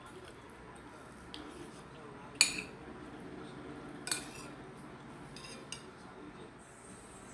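A metal spoon clinking and scraping on a plate as someone eats: a few sharp clinks, the loudest about two and a half seconds in, another at about four seconds, and lighter taps after.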